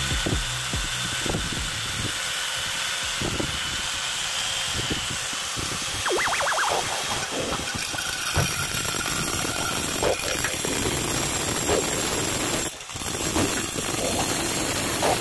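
Makita handheld angle grinder with a diamond blade running and wet-cutting a ceramic tile, water trickling onto the blade from a bottle feed: a steady grinding hiss with a faint motor whine, dipping briefly near the end.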